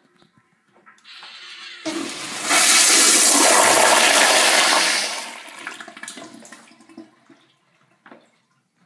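Crane commercial toilet fixture flushing: a hiss starts about a second in, then a loud, forceful rush of water for about three seconds, tapering off over the next two seconds.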